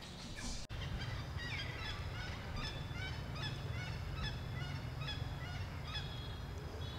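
Many short, high chirping animal calls repeating quickly over a steady low rumble, after a brief dropout about a second in.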